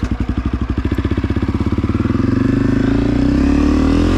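2022 Honda CRF250F dirt bike's single-cylinder four-stroke engine, breathing through a Pro Circuit aftermarket exhaust, revving up as the bike sets off. Its separate firing pulses come faster and faster and merge into a steady note that rises in pitch near the end.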